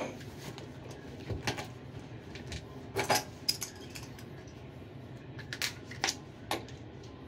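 Hands pulling off a work glove and handling small objects: a few short clicks and rustles, in small clusters about a second and a half in, around three seconds, and again near the end.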